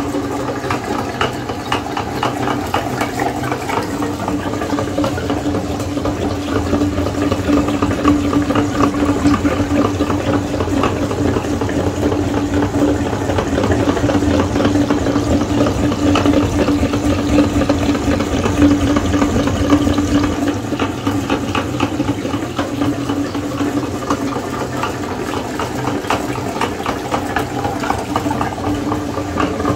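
Meat grinder motor running with a steady hum while green soda is poured into it, the liquid splashing and gurgling as it is forced out through the grinder plate.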